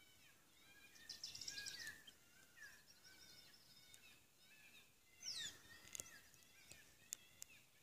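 Faint bird calls in open country: scattered high chirps, a chattering burst about a second in, and a quick falling whistle past the middle, with a few sharp ticks near the end.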